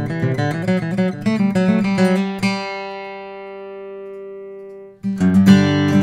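Gibson J200m small-body jumbo acoustic guitar with quilted maple back and sides, played solo. A run of quickly picked notes ends on a chord left ringing and fading for a couple of seconds. Near the end the ringing is cut off, and the playing resumes with strummed chords.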